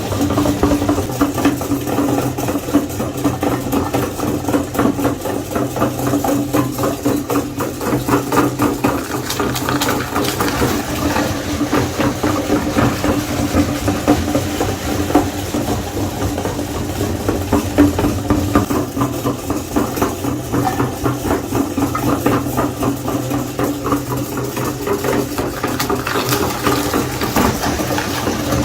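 Electric meat grinder running steadily with a constant motor hum, with crackling as food is forced through and ground.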